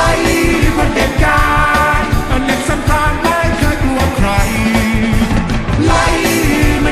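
Loud rock-style music with a voice singing over a steady beat.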